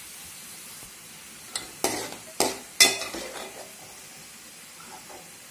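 Chopped ginger sizzling steadily in hot oil in an aluminium pan, with a steel ladle scraping and knocking against the pan a few times around the middle as the browned ginger is scooped out.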